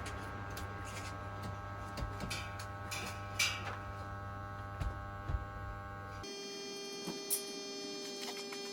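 Steady electrical hum with scattered light clicks and taps; about six seconds in the hum changes abruptly to a different, higher steady tone.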